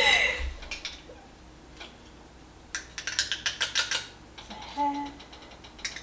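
Jerk seasoning being shaken from its jar into a metal measuring spoon: a clink, then quick light ticking and tapping in two short runs, the second fainter.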